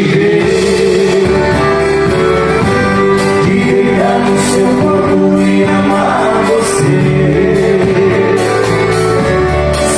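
Live sertanejo band playing: strummed steel-string acoustic guitars over a drum kit with regular cymbal and snare hits, with singing.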